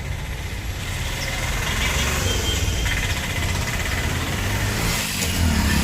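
Street traffic: a motor vehicle's engine running close by, a steady low rumble with road noise.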